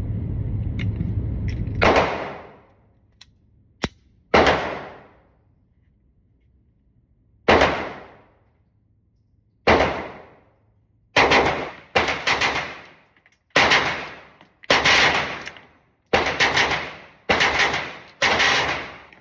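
Glock pistol with its factory trigger and a 3.5 Ghost connector firing a string of shots, each a sharp report with a fading echo tail. The first few come one at a time, a second or more apart; the later ones come closer together, some almost back to back.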